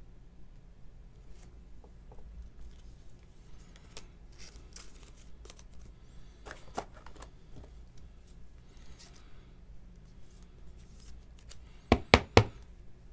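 A trading card being slid into a plastic penny sleeve and a rigid top loader: soft rustling, scraping and small clicks, then three sharp knocks in quick succession near the end.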